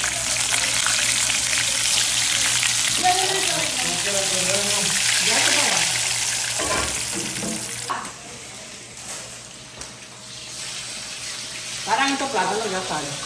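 Food frying with a loud, steady sizzle that fades away after about seven seconds, leaving a quieter background. Faint voices sound under the sizzle, and someone speaks briefly near the end.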